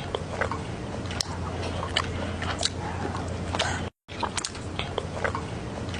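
A mouse chewing and nibbling food close to the microphone: irregular small sharp crunches and clicks over a steady low hum, with a brief dropout about four seconds in.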